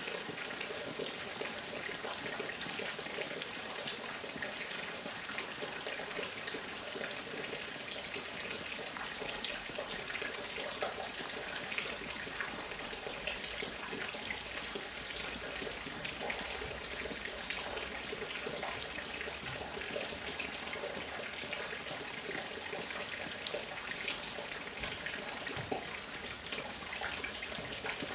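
Light rain falling steadily, a dense even patter with many small separate drips, as water drips from a roof.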